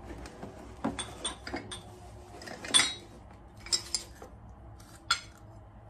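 White porcelain cup and openwork-rimmed saucer clinking and knocking as they are handled and taken out of their box: a run of light clinks, the sharpest a little under three seconds in.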